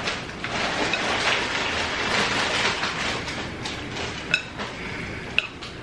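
Close-miked eating of black bean noodles: wet slurping and chewing in repeated bursts, with two sharp ringing clinks of chopsticks against the bowl, one past the middle and one near the end.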